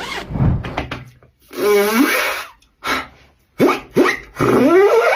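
Beatboxed vocal sound effects: separate noisy mouth bursts, a wavering pitched call about two seconds in, and a long rising glide near the end.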